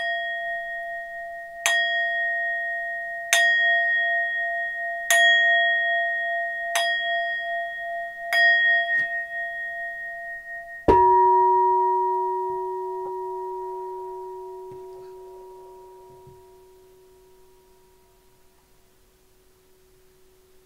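Tibetan singing bowl held on the palm and struck with a mallet five times, about every 1.7 s, its ringing tone wavering. About eleven seconds in, a harder strike sounds a second, deeper-pitched ringing metal instrument, which fades slowly over several seconds.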